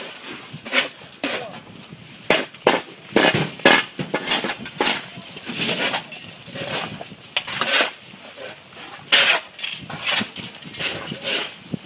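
Snow shovels scraping and crunching through packed snow and ice on paving, in many irregular strokes.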